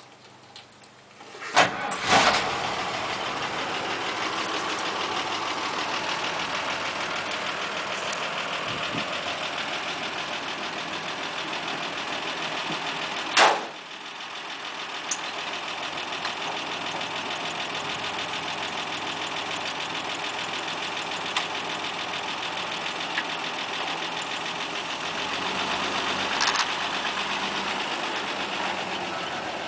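A 1967 Nissan Patrol's straight-six petrol engine is cranked with the key and catches within about a second, then idles steadily. A single sharp thump comes about halfway through.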